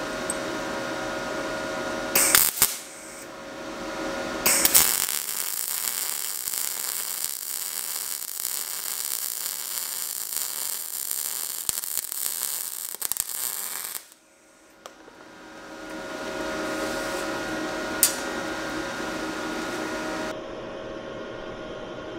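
MIG welding arc crackling steadily for about nine seconds, starting about four and a half seconds in and cutting off sharply about fourteen seconds in. A steady hum lies under the quieter stretches before and after.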